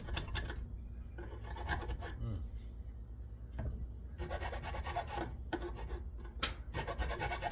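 Metal parts of a bench grinder scraping, rubbing and clinking as it is taken apart by hand to get at its motor, with a few short rasping scrapes and scattered clicks.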